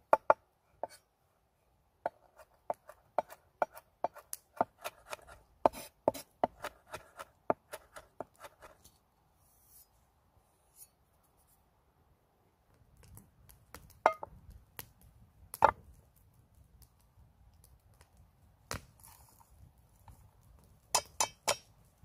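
Curved-bladed knife chopping rosemary on a wooden cutting board: a quick run of about three strokes a second for several seconds. Then a few separate knocks and clinks, with a quick cluster near the end.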